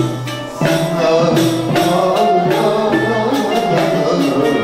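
Male solo voice singing a Turkish classical song in makam hicazkar, accompanied by a Turkish music ensemble with kanun and regular percussion strokes.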